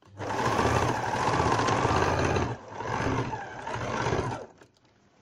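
Electric sewing machine running as it stitches a seam, its speed rising and falling; it slows almost to a stop about halfway, runs again, then stops shortly before the end.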